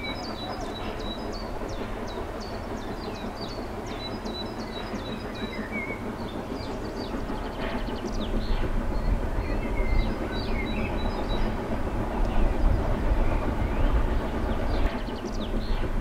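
Distant steam train, locomotive 97 501 hauling its passenger coaches, running along the line: a low rumble that grows louder over the second half. Songbirds chirp over it.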